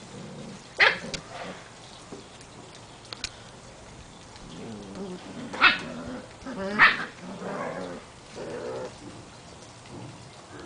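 Seven-week-old Portuguese Water Dog puppies at play: three sharp puppy barks, one about a second in and two close together in the middle, with play growling in between.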